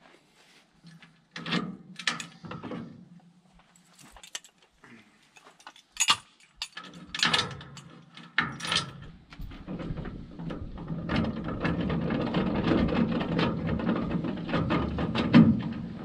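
Metal clanks and rattles of a small baler's PTO driveline and hitch being uncoupled by hand from a John Deere 2950 tractor. A steady low rumble sets in about ten seconds in.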